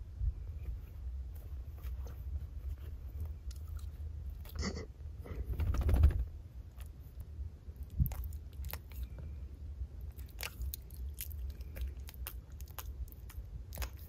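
Small dog licking and smacking its lips close to the microphone: a run of short, wet mouth clicks over a low steady rumble, with a louder rustling swell about five to six seconds in.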